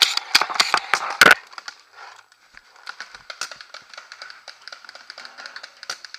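Paintball fire: a quick run of loud, sharp cracks in the first second and a half, then many fainter pops and ticks of shots and balls striking through the rest.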